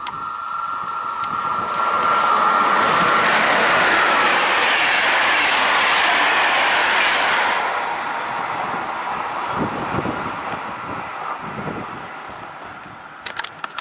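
An electric-locomotive-hauled passenger train passes through the station at speed. A steady high whine comes first as it approaches, then a loud rush of wheel and rail noise as the coaches go by, fading away as the train recedes.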